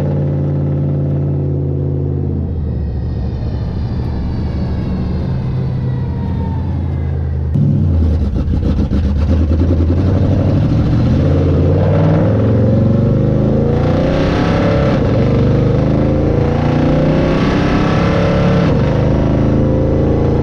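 1968 Dodge Charger stock car's engine running under way. A couple of seconds in it eases off and the pitch falls. About seven and a half seconds in it gets suddenly louder as the throttle opens and the car accelerates, the pitch rising and dipping through the rest.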